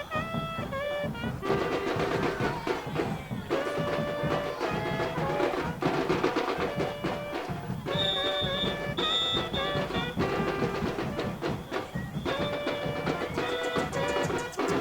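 Murga carnival band playing: a brass melody of short held notes over steady drumming and percussion.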